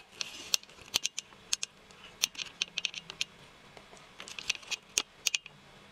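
Scattered light clicks and taps of a paintbrush being dipped and knocked in a small plastic paint pot and worked over a paper sheet, irregular and a few to the second.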